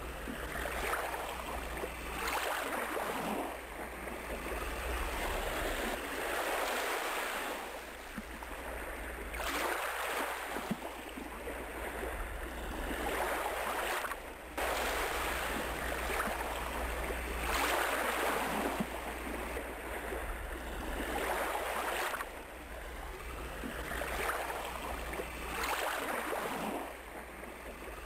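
Ocean surf: waves washing in and out, the rush swelling and fading every two to three seconds over a steady low rumble.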